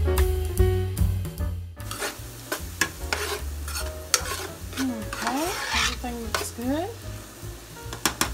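Background music for about the first two seconds, which cuts off suddenly. Then onions sizzle in a skillet on the stove while a utensil stirs and scrapes them, with clicks and taps against the pan and a few rising squeaks from the scraping.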